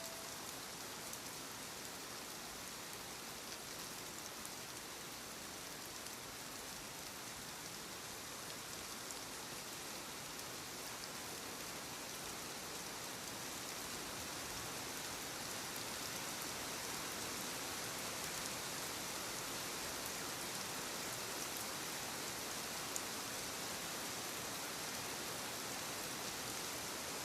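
Steady recorded rain sound used as sleep white noise: an even hiss of falling rain that grows slightly louder about halfway through.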